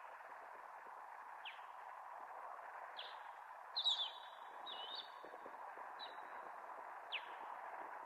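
A bird of prey calling: short, sharp, falling whistled notes about once a second, the loudest a quick cluster of notes about four seconds in. A steady hiss of strong wind runs underneath.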